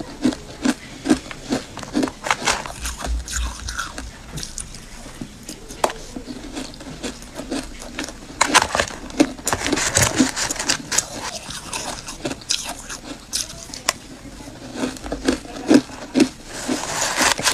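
Ice being chewed close up, a rapid run of sharp crunches, with a metal spoon scraping and scooping through crushed ice in a plastic bowl about halfway through and again near the end.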